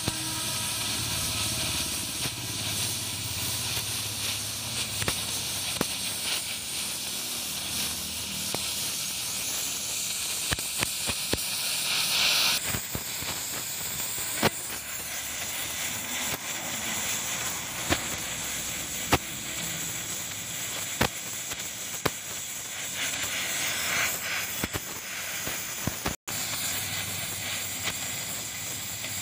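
Gas welding torch flame hissing steadily as brass filler rod is melted onto a steel pipe, with a few sharp pops scattered through it; the hiss turns brighter and higher partway through.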